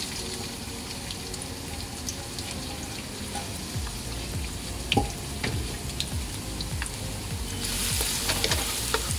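Chopped onions sizzling steadily in hot oil in a nonstick wok, with a few knocks as they are pushed around; the sizzle gets louder near the end as a wooden spatula stirs them.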